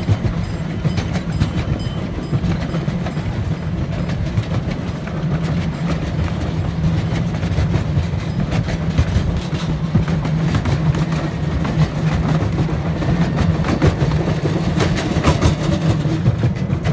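Miniature park train running along its track, a steady low rumble with irregular clicks from the wheels on the rails, heard from aboard one of its open passenger cars.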